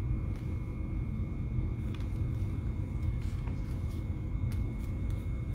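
Steady low rumble of background noise, with a few faint light clicks.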